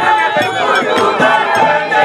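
Many voices singing together in a crowd, over a steady percussion beat.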